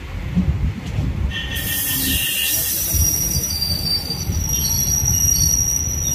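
Express train's steel wheels squealing against the rails over the low rumble of the running coaches. The squeal comes in about a second and a half in as a hiss with several steady high-pitched whistling tones and holds on.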